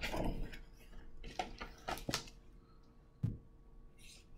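Pages of a hardcover picture book rustling and flipping under the hand, with a few light clicks, then a single soft knock about three seconds in as the book is shut, and a brief rustle as it is lifted.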